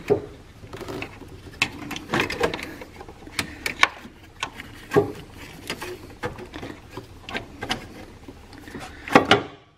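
An engine mount being twisted and worked by hand through a tight engine bay, knocking and scraping against the parts around it in irregular clicks and clunks, with a louder pair of knocks near the end.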